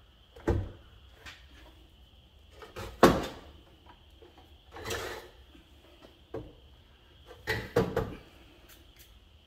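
A few separate clunks and knocks from hands working in an RV's battery compartment, loosening and shifting parts to free the disconnected chassis batteries. The loudest knock comes about three seconds in, and a close pair comes near the end.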